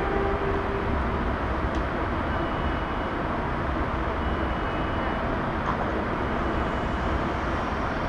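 A held tone from the show's music fades out about a second in, leaving a steady, noisy outdoor rumble and hiss with no distinct event.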